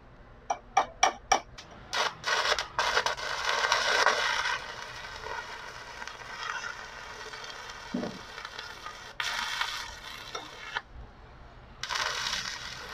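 Stick-welding arc from a repaired inverter welding machine on test. It starts with a quick run of sharp cracks as the electrode is struck, then the arc crackles and sizzles in spells, breaking off and restarting twice. The repaired machine strikes and holds an arc.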